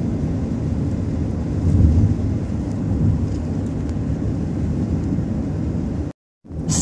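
Steady low rumble of a car on the move, heard from inside the cabin. The sound cuts out abruptly for a moment near the end.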